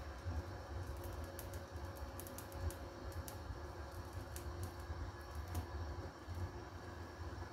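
Lidded saucepan of laksa broth simmering on a gas stove: a steady low rumble with scattered light ticks and clicks.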